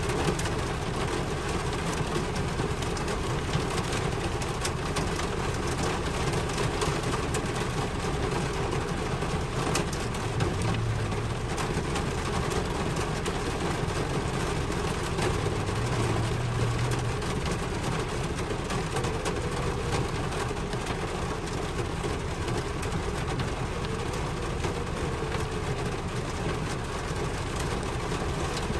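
Steady rainfall: an even, continuous hiss with a low rumble underneath.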